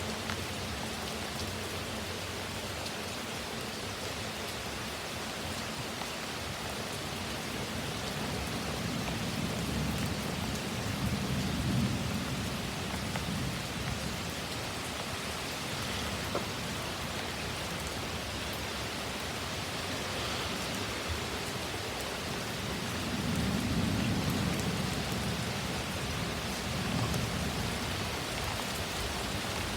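Heavy thunderstorm rain pouring steadily. Low rumbles swell up twice, around ten seconds in and again near the end.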